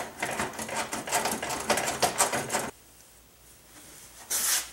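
Fast mechanical clicking for about two and a half seconds as a tool backs out a window regulator mounting bolt inside a car door. Then a short burst of noise near the end.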